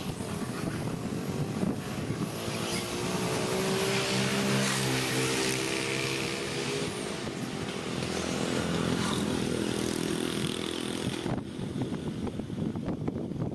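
Engine drone of a passing vehicle, growing louder from about two seconds in and fading away after about eleven seconds, over a steady background hiss.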